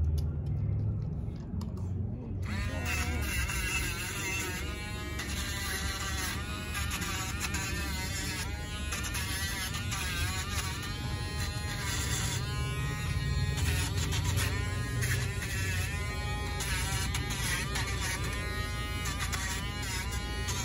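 Handheld rotary nail grinder (Dremel-type) switching on about two seconds in and running as it files a dog's nails, a high buzzing whine that dips in pitch and recovers again and again as it is pressed to each nail.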